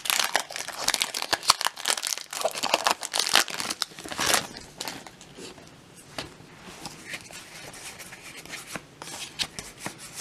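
Foil booster pack wrapper crinkling and tearing as it is opened, a dense crackle for about the first four seconds. After that come fainter ticks and rustles of the cards being handled.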